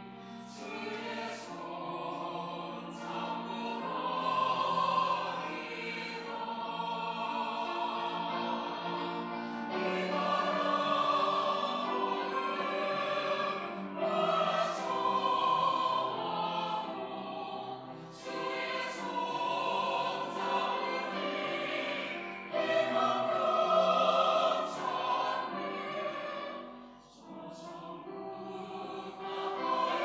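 Mixed choir of women's and men's voices singing a sacred anthem in sustained chords, swelling and easing phrase by phrase, with a brief break about three-quarters of the way through.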